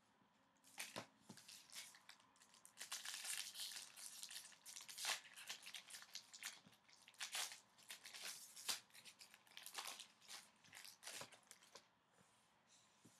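A foil trading-card pack wrapper being torn open and crinkled by hand: a dense run of irregular crinkling and tearing rustles that starts about a second in and dies away about a second before the end.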